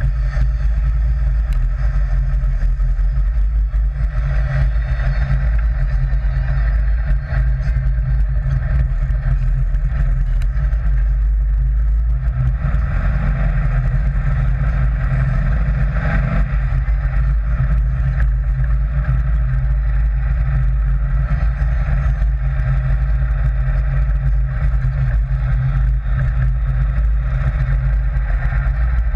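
Sand rail (dune buggy) engine running steadily under way, loud and even throughout.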